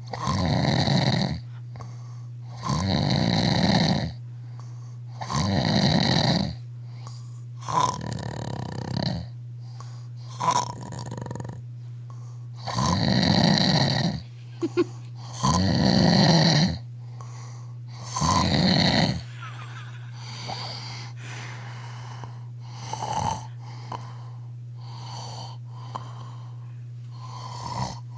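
A man snoring loudly in his sleep, one long snore every two and a half to three seconds. After about twenty seconds the snores turn quieter and less regular, over a steady low hum.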